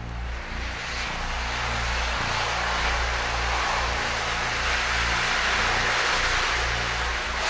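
A thermite charge burning against a steel column: a loud, steady roaring hiss that builds over the first couple of seconds and then holds.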